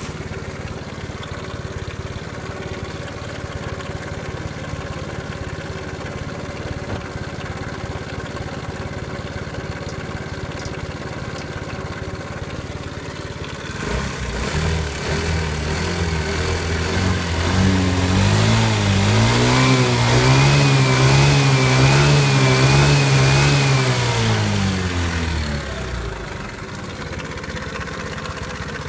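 Suzuki Let's 4 scooter's 50cc four-stroke engine idling, then revved up about halfway through, held at higher revs that waver up and down, and let fall back to idle. The engine is one said to have an abnormal noise.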